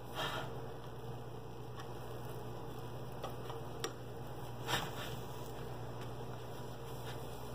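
A few light clicks and taps of a plastic spatula against a nonstick frying pan as it works under a cooking crepe, the loudest about three quarters of the way through, over a steady low hum.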